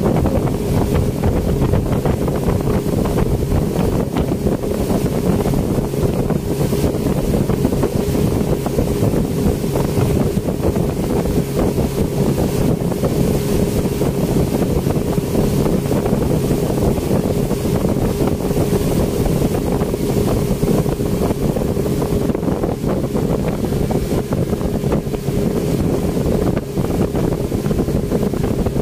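Yamaha outboard motor on a speedboat running steadily at speed, a constant drone, mixed with the rush of the wake and wind buffeting the microphone.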